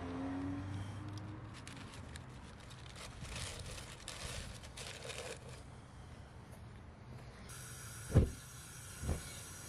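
Brown paper crinkling and rustling as it is crumpled and stuffed into a propane furnace to light it, after a low hum fades at the start. About eight seconds in comes a single sharp, loud whump as the burner's propane catches, and a smaller thump about a second later.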